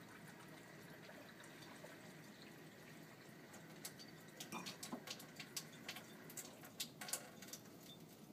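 A thin stream of water running faintly and steadily from a water ionizer's stainless steel outlet hose into a glass and the sink, with a scatter of light clicks from about four seconds in.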